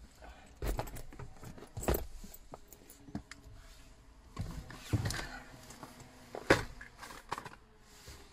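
Handling noises as a person climbs into a car's driver's seat with shopping: rustling of bags and clothing with scattered light knocks and clicks, the sharpest click about six and a half seconds in.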